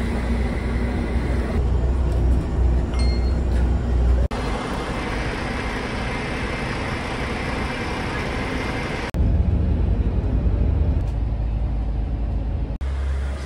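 Road traffic noise with a strong low rumble. It comes in several short clips that cut off abruptly about four, nine and thirteen seconds in.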